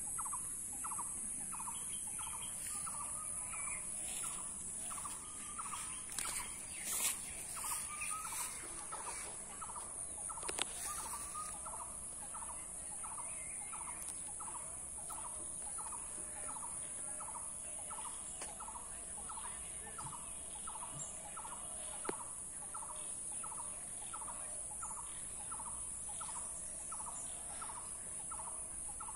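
Outdoor ambience with a steady high-pitched insect drone and a short animal call repeating evenly about twice a second. A few sharp clicks come in the first third.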